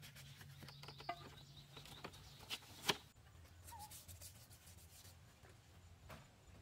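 Faint scattered taps and knocks of hand work on bamboo and wood, with one sharper knock about three seconds in.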